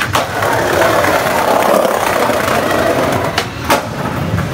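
Skateboard wheels rolling over a tiled walkway, a steady rolling noise, with two sharp clacks close together near the end.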